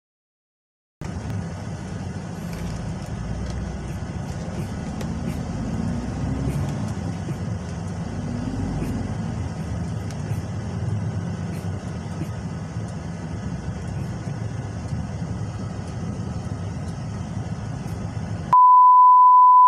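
Truck engine and road noise heard from inside the cab while driving in slow town traffic, a steady low rumble with the engine note rising and falling twice. Near the end a loud, steady electronic beep tone cuts in and replaces it.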